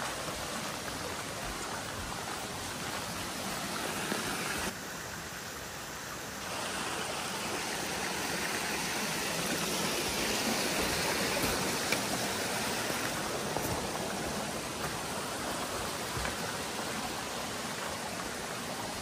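Steady, even rush of water noise, briefly quieter about five seconds in.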